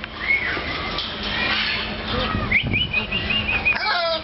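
Talking bird whistling and calling: an arching whistle near the start, a run of short, even high notes later on, then a quick falling series of notes at the end.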